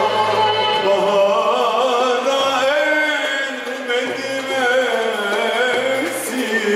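Ensemble of violins, cello, double bass and a long-necked lute playing a Turkish classical song in makam Hüzzam, usul Düyek, with ornamented melodic lines. A male singer's voice joins near the end.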